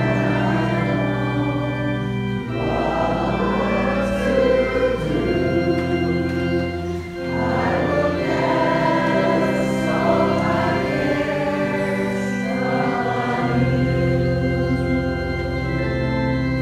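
Choir singing a slow hymn with organ accompaniment, the organ holding long chords that change every few seconds.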